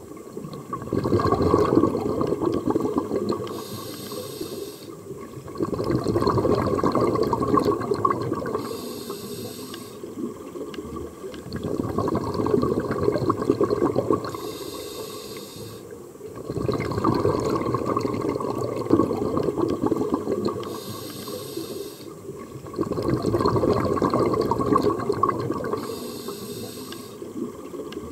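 Scuba diver breathing through a regulator underwater, about five breaths, one every five to six seconds. Each is a short high hiss of inhaled air through the regulator, then a long low bubbling rush of exhaled air.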